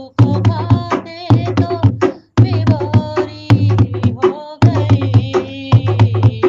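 Hindi devotional song (bhajan) to Ram: a voice sings a melody over steady drum beats, with two brief breaks, about two seconds in and again past the middle.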